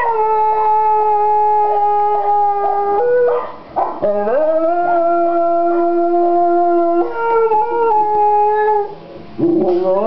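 A dog howling in long, drawn-out howls of a few seconds each, each held at a steady pitch. A new howl begins with an upward swoop near the end.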